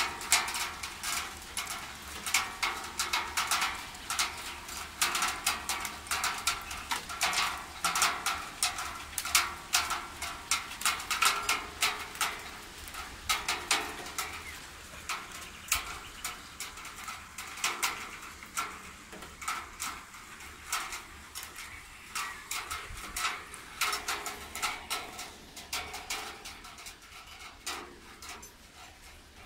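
Light rain: raindrops tapping irregularly on a balcony and its railing, thick and fast at first and thinning out over the last ten seconds.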